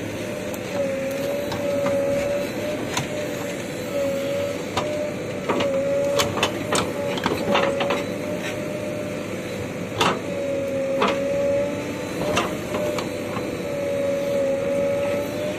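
JCB backhoe loader working: a steady, slightly wavering whine with scattered sharp metallic knocks and clanks, a run of them in the middle and a few more later.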